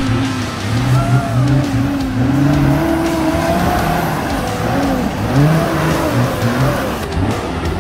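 A four-wheel drive's engine revving up and down under load as it crawls up a steep rutted climb, the pitch rising and falling again and again.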